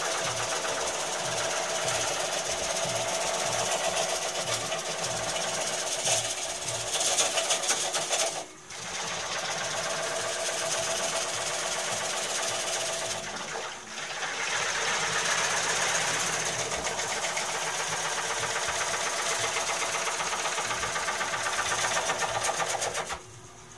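Bowl gouge cutting the inside of a large oak bowl spinning on a Heyligenstaedt VB 36 lathe: a steady, rough hiss of wood being cut, with a faint rhythmic pulse about three times a second. The cut breaks off briefly twice and stops shortly before the end.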